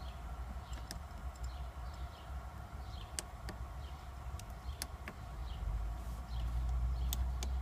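Scattered sharp clicks, about eight, of buttons being pressed on a Pyle in-dash car radio's faceplate, over a steady low hum.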